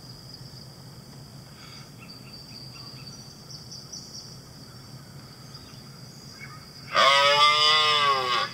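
A steady background of crickets, then about 7 seconds in a loud moose call, one drawn-out cry of about a second and a half that falls in pitch.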